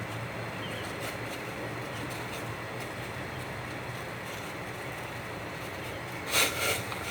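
Steady hiss and low hum of a pot of soup heating on the stove as it comes back to a boil, with a brief clatter about six and a half seconds in.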